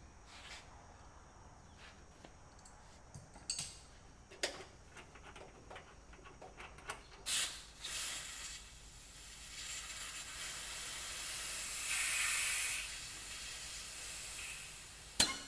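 A few light clicks and knocks of tool work on metal, then about seven seconds in a long hiss of pressurized gas that swells, peaks and fades over roughly eight seconds, with a sharp click near the end.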